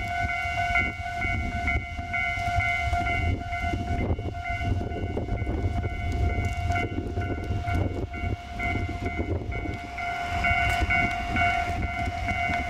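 Japanese railway level-crossing warning bell ringing, a steady repeating electronic ding held at one pitch, over a low rumble.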